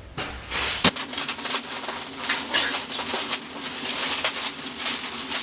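Wrapping paper being torn and rustled as a big present is unwrapped: a dense run of crackling and ripping with one sharp snap about a second in.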